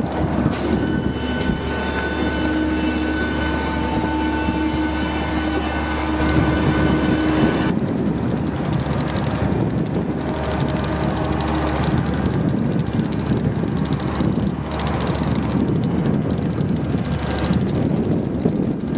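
Steady hum and whine of airport apron machinery around a parked Boeing 737-800 jet, over a low rumble. The higher whining tones stop abruptly about eight seconds in, leaving the rumble and outdoor noise.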